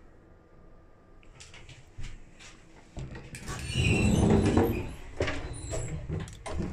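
End doors between two railway passenger coaches being opened and passed through: a few latch clicks, then from about three seconds in a loud rumbling clatter of doors and gangway, loudest a little past the middle, with sharp knocks near the end.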